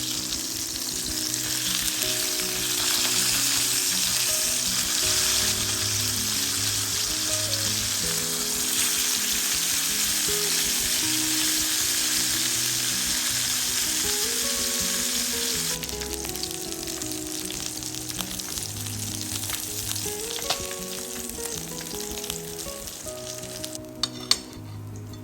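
Food sizzling as it fries in hot oil in a pan, loud for the first two-thirds and then dying down to a softer crackle, with a couple of sharp taps near the end. Soft background music plays under it.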